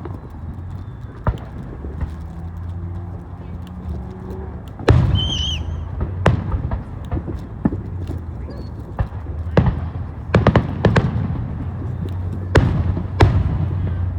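Aerial fireworks bursting: about eight sharp booms at uneven intervals, a few coming in quick succession near the middle.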